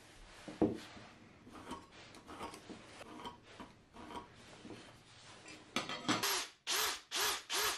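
Pencil scratching across the end grain of a square pine blank against a metal square, marking its diagonals, with a knock about half a second in as the wood is handled. Near the end come four louder, quick scraping strokes.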